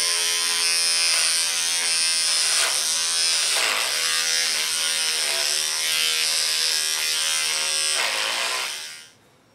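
Handheld electric hair clippers running with a steady buzz as they are run through hair on the side and top of the head. The pitch dips briefly twice, and the clippers stop near the end.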